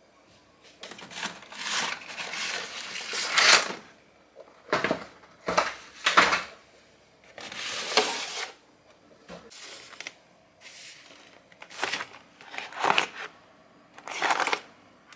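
Cardboard boxes of coffee capsules being handled on a cupboard shelf: a series of short scrapes and rustles as the boxes are slid about, pulled out and opened.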